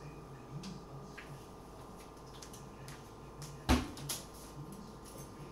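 A steady low hum, with one sharp knock about two-thirds of the way in and a softer knock just after it.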